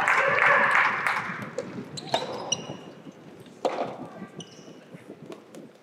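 A rushing crowd-like noise fades out over the first second, then two sharp knocks about a second and a half apart, with short high squeaks around them: a soft tennis ball bouncing on an indoor court floor.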